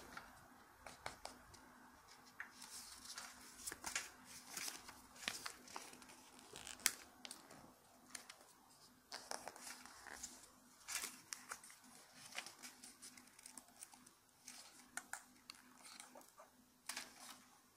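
Thin origami paper handled and folded close up: irregular crinkling and rustling, with sharp crisp clicks as creases are pressed in.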